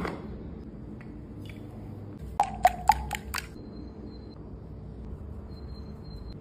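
A metal spoon clinking against a metal flour sieve five times in quick succession, each tap with a short ring, as flour is spooned in for sifting. A single knock comes right at the start.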